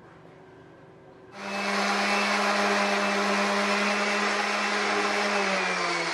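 Random orbital sander switching on about a second in and running steadily as it buffs a bare aluminium aircraft wing skin, scuffing the too-shiny surface so primer will bond. Its pitch sags slightly near the end.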